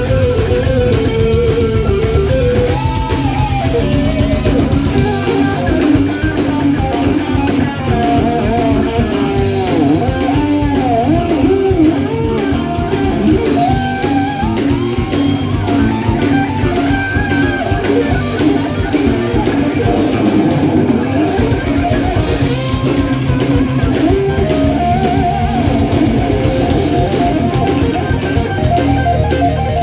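Live heavy metal band playing loud: distorted electric guitars and drums, with a melody line bending in pitch over the driving rhythm.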